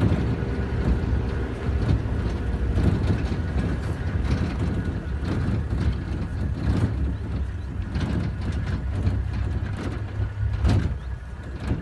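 Vehicle engine running with a steady low rumble, mixed with scattered knocks and rattles. The rumble drops near the end.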